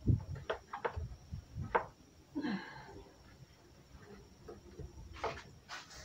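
A few short, scattered scrapes and knocks as a plastic fan grille is scrubbed and handled with a sponge.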